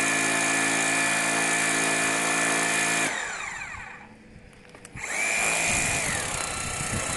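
Xiaomi JIMMY JW31 pressure washer's motor and pump running with a steady whine while water jets onto a car hood. About three seconds in the spray stops and the motor winds down to a stop. About a second later it starts up again with a rising whine as spraying resumes.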